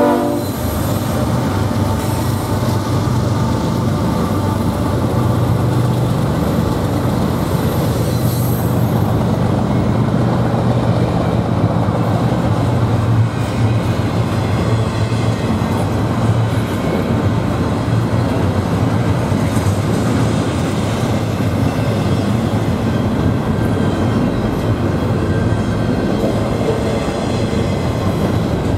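A BNSF train rolling steadily past: continuous rumble of wheels on rail under a low, even drone, with faint high wheel squeals at times.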